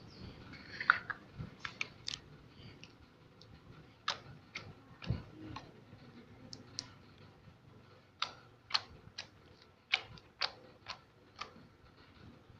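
Slime being pressed and played with by hand, giving irregular sharp clicks and small pops.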